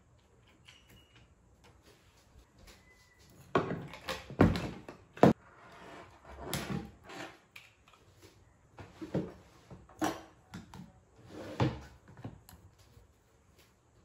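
Someone handling things at a desk: an irregular run of knocks, bumps and rustles as objects are picked up and set down, the loudest few thuds about four to five seconds in.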